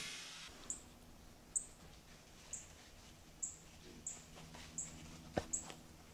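Short, high-pitched chirps from a small animal, each slightly falling, repeating about once a second. A single sharp knock sounds about five seconds in.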